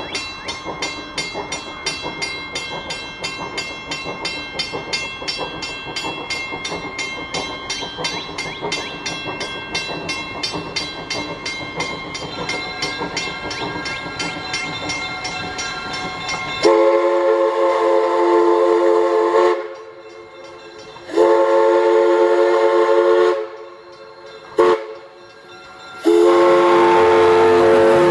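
Viscose Company 0-4-0 steam locomotive No. 6 approaching, its exhaust chuffing in a quick, even beat; then its steam whistle blows the grade-crossing signal: long, long, short, long.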